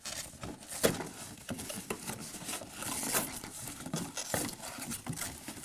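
Cardboard toy box being torn open by hand: cardboard tearing and paper inserts crinkling, with irregular rustles and a few sharp snaps, the loudest a little under a second in.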